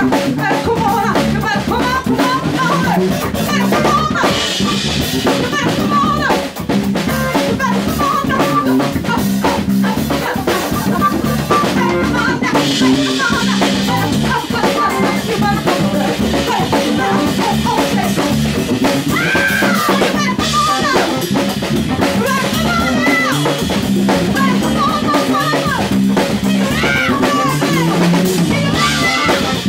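Live blues band playing: a woman sings lead over drum kit, bass guitar and electric guitars.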